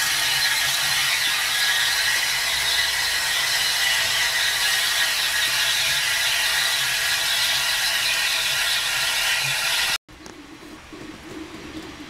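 Steam feedwater injector on a boiler running, forcing water into the boiler: a steady, loud rushing hiss with a rattling edge. It cuts off suddenly about ten seconds in to a much quieter background.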